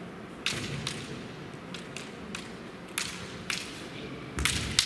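Bamboo kendo shinai clacking in a bout: a series of sharp, separate cracks, then a louder cluster of strikes with a heavy thump near the end.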